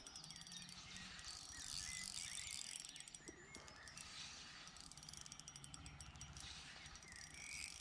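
Shimano Sephia 3000S spinning reel being cranked to retrieve line with a hooked chub on, a faint, fast, even clicking whir from the gears and handle.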